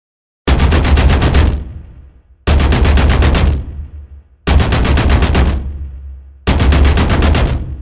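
Automatic gunfire sound effect: four one-second bursts of rapid shots, roughly ten a second, starting two seconds apart, each trailing off over about a second with a heavy low end.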